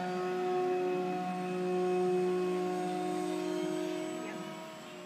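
Electric motor and propeller of a radio-controlled Cub model plane in flight: a steady humming whine that swells about two seconds in and fades toward the end as the plane climbs away.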